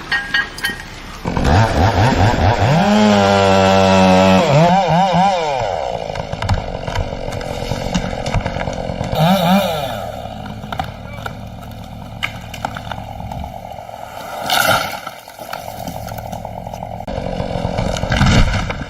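Chainsaw revving: about two seconds in its engine speeds up hard, the pitch sweeping up and down, then it runs on steadily with a few short revs.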